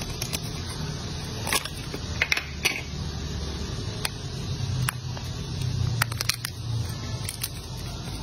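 Crisp cracks and crackles of a dry white soap bar being carved with a blade, its thin slices snapped and crumbled between fingers, in short irregular snaps, the sharpest a couple of seconds in. A steady low hum runs underneath.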